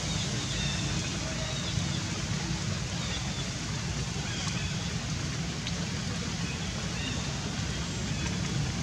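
Steady rushing outdoor background noise, with a few faint, short, high chirps scattered through it.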